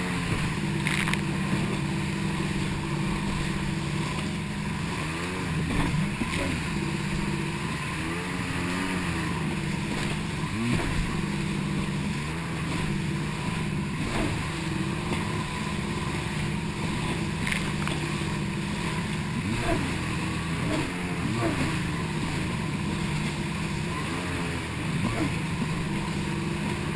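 Jet ski engine running at speed, its pitch wavering as the throttle and load change, with short slaps as the hull hits the chop.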